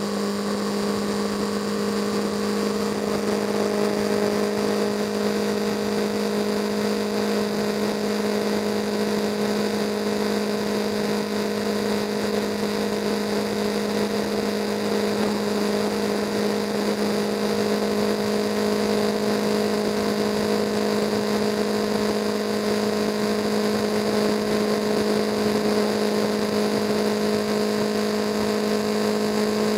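A vehicle's engine droning steadily at constant cruising speed, with road and wind noise.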